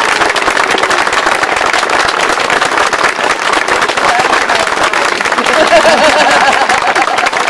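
A small crowd applauding steadily with many hands clapping, just after a couple is pronounced married, while a voice rises and wavers above the clapping near the end.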